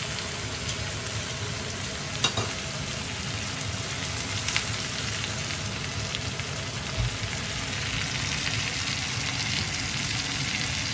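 Soft-shell crabs frying in butter and oil in a cast-iron skillet: a steady sizzle, with a couple of brief light clicks in the first half.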